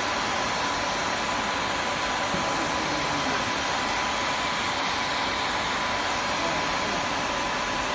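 Steady machine noise, an even hiss like a running fan or ventilation unit, with a thin steady high tone through it.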